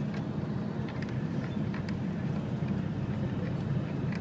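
Steady low engine and road noise of a moving tour coach, heard from inside the cabin, with a few faint light clicks.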